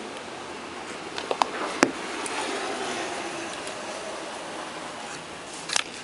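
Hands handling a dynamic microphone's handle and pushing the cable connector insert out of it: rubbing and scraping, with a few sharp clicks about a second and a half in and again near the end.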